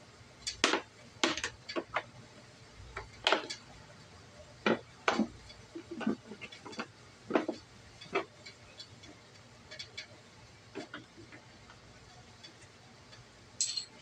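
Plastic scooter body panels being handled and worked loose by hand: irregular sharp clicks and light knocks, more of them in the first half.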